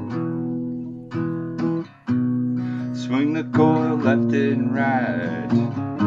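Background music: a strummed acoustic guitar, with a voice singing from about halfway through.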